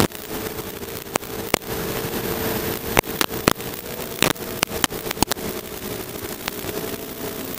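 FPV quadcopter's electric motors and propellers whirring in flight: a steady tone that wavers slightly, over a hiss, with scattered sharp clicks and cracks.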